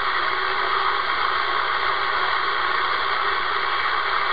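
Steady hiss of band noise from a Realistic TRC-465 CB radio's speaker, its receiver open on channel 38 with no station transmitting.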